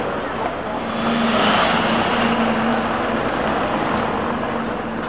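Street traffic passing close: a small van and an articulated electric trolleybus go by. The noise swells about a second in, over a steady low hum.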